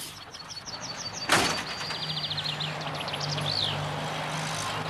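Birds chirping in short repeated calls. About a second in there is a single sudden noise, and then a motor vehicle's engine starts up and runs steadily.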